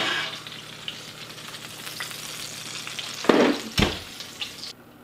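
Sliced steak and butter sizzling on a hot ceramic plate just pulled from under the oven broiler, with a steady hiss. About three and a half seconds in, the oven door knocks shut with a deep thud, and the sizzling cuts off suddenly near the end.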